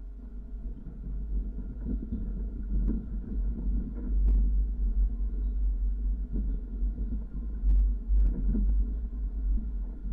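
Low rumble of a vehicle driving slowly over a rocky dirt track, picked up by a dash camera inside the cab, with a steady engine hum beneath and a few sharp clicks of stones and the body.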